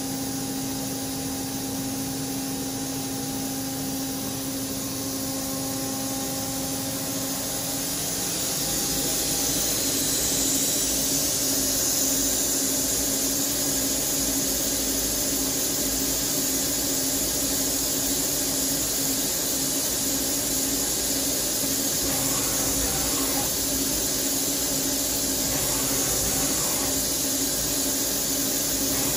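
Steady running hum of a Fanuc Robodrill CNC drill-and-tap center, with a constant tone, and a hiss that grows louder about eight seconds in.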